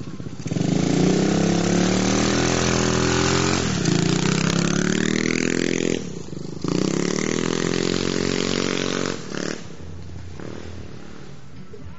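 Yamaha YZ250 two-stroke motocross bike accelerating hard, its engine pitch climbing in runs that break as the throttle shuts or the gear changes, about four, six and nine seconds in. After about ten seconds only a lower, quieter engine sound remains.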